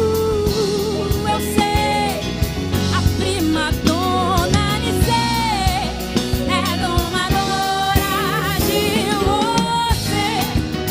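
Live band of electric bass, electric guitar, drum kit and keyboard playing, with a woman's lead vocal singing a melody over it.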